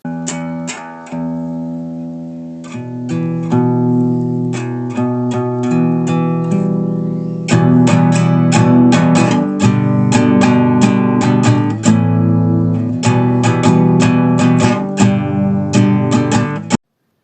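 Guitar music of quick plucked notes, growing fuller and louder about seven and a half seconds in and cutting off abruptly near the end.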